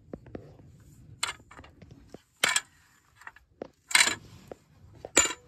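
Four sharp metallic clinks and scrapes, about one every second and a half, from a metal calf-catching pole knocking as it is carried while crawling through a crawl space, with faint shuffling on the dirt in between.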